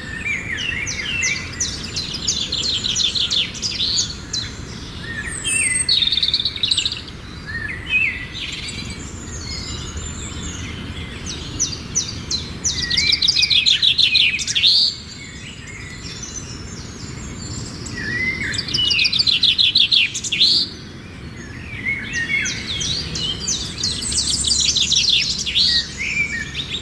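Small birds calling with bouts of rapid, evenly repeated high chirps and short rising and falling notes, several seconds at a time, with brief lulls between bouts.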